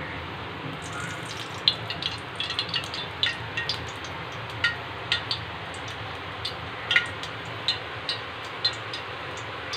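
Cooking oil heating in an aluminium pot, crackling with irregular sharp pops and a light sizzle from about a second in, over a steady low rush.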